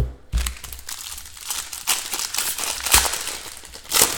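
Plastic trading card pack wrapper crinkling as it is handled and torn open, with a few knocks.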